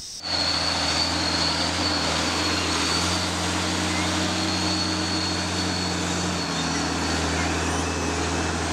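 A large engine running steadily: a low, even drone with a thin high whine over it, cutting in abruptly just after the start.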